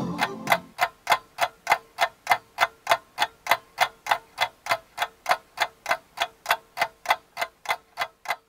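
Clock ticking, about four even ticks a second, with a faint steady tone beneath.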